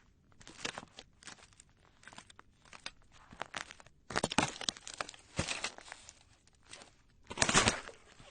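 Footsteps on ice, heavy crunching: a run of uneven crunching steps, with the loudest crunches about four seconds in and near the end.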